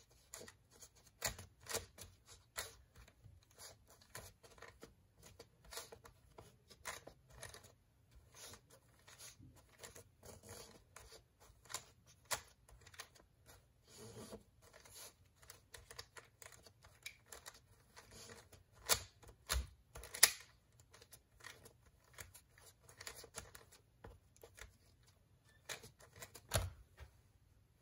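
MGC V1 3x3 plastic speedcube being turned by bare feet: an irregular run of plastic clicks and clacks as the layers are turned, with a few louder knocks about two-thirds of the way through.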